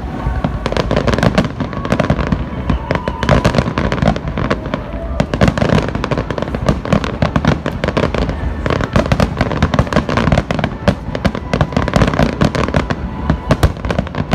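Fireworks grand finale: a dense, continuous barrage of shell bursts and crackling, many reports a second with no break.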